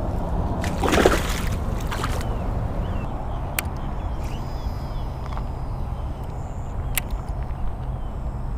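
A peacock bass splashing into the water as it is released, a short splash about a second in, over a steady low rumble. Two sharp clicks come later.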